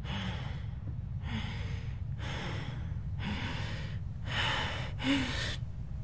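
A person breathing heavily and rhythmically, about one breath a second, growing louder near the end, over a steady low hum.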